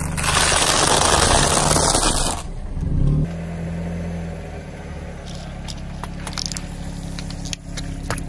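Car tyre rolling over a pile of crunchy hollow sticks: a dense crunching for a little over two seconds. Then the car's engine runs low and steady as it creeps, with a few small crackles under the tyre.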